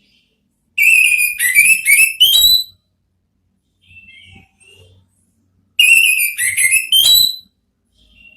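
Orange-headed thrush singing its loud, clear 'ngeplong' song. It gives two phrases of quick whistled notes about four seconds apart, each ending on a higher rising note, with a few soft notes between.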